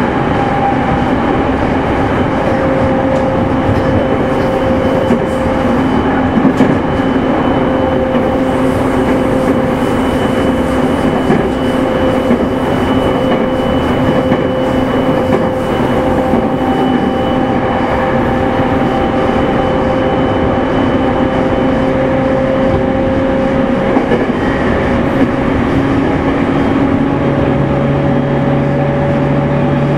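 E231-series electric train running, heard inside a motor car: a steady rumble of wheels on rail with the even whine of the traction motors and their inverter, which shifts in pitch near the end. A few louder knocks from the wheels pass by.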